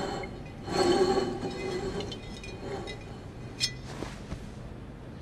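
Low, tense hum of a hushed hall, with a brief louder swell about a second in and one sharp glass clink about three and a half seconds in.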